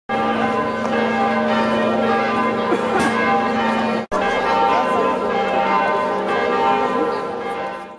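Church bells pealing, many ringing tones overlapping continuously, with a brief break about four seconds in.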